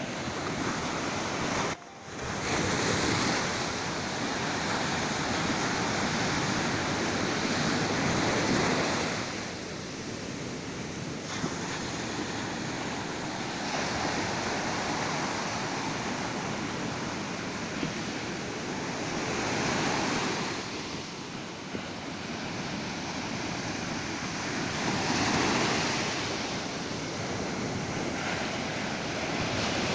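Ocean surf: waves breaking and washing up the beach in a steady rush that swells and eases every several seconds. A brief drop-out cuts the sound for a moment about two seconds in.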